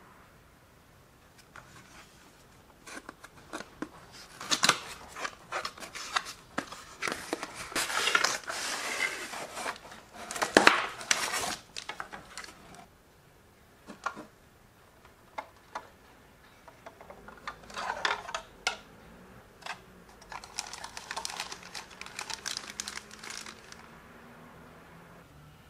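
Unpacking a Re-Ment miniature kitchen set: clear plastic bags crinkling, cardboard packaging rustling and small plastic parts clicking and tapping. The handling comes in two spells with a quieter gap in the middle.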